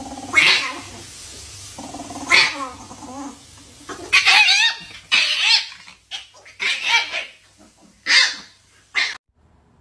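A chihuahua and a cat sparring: a steady low growl, then a string of about eight sharp snarling bursts as they go at each other, stopping just before the end.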